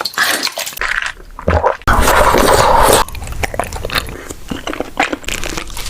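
Close-miked eating sounds of boba tea: a loud, one-second slurp through a straw about two seconds in, with chewing of tapioca pearls and many small wet clicks before and after.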